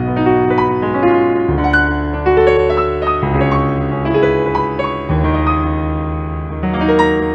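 Instrumental keyboard music: piano-like struck notes and chords over held bass notes that change every second or two.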